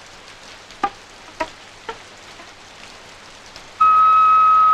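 Steady rain hiss with a few scattered plinking notes, then near the end a loud, steady high note comes in and holds.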